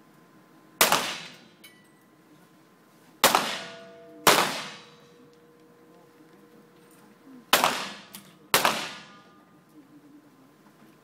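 Five centerfire pistol shots at irregular intervals from several shooters firing precision series, with two pairs about a second apart. Each is a sharp crack with a short echoing tail in an indoor range hall.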